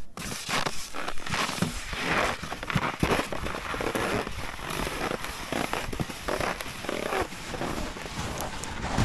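Steps crunching and scraping over frozen, wind-packed snow crust, with hunting skis sliding and crackling at each stride.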